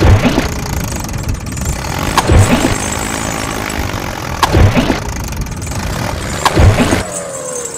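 Vehicle engine running, surging up in a strong rev about every two seconds in a regular repeating pattern.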